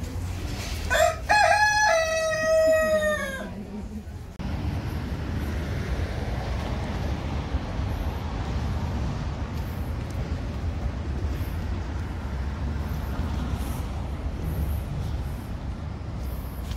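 A rooster crowing once, one cock-a-doodle-doo that drops in pitch at the end. About four seconds in, it gives way abruptly to a steady low rumble of background noise.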